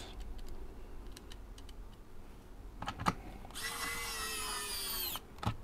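Kaiweets ES20 cordless electric screwdriver whirring for about a second and a half as it drives a small screw back into a device's case, its pitch sagging slightly under load before it stops. A few light clicks of the bit meeting the screw come just before the run, and another just after.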